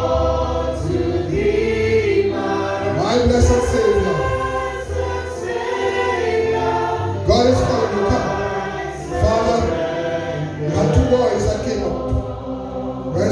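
Choir singing a gospel hymn, with sustained low accompaniment notes under the voices.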